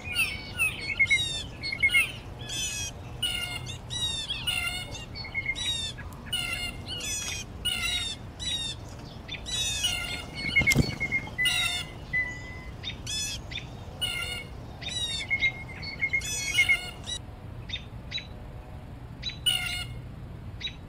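Several songbirds singing at once, with quick trills and repeated chirps overlapping, thinning out near the end. A single sharp knock about eleven seconds in.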